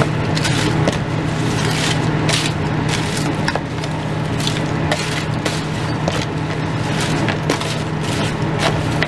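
Crushed Doritos tortilla chips crunching and crackling as wooden salad servers stir them into chili beans in a plastic container, with many irregular crackles and scrapes.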